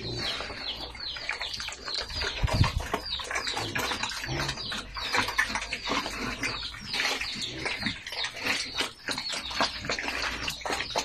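Several young pigs eating wet feed from a concrete trough: steady chomping and slurping, with many short high chirps throughout. A low thud about two and a half seconds in.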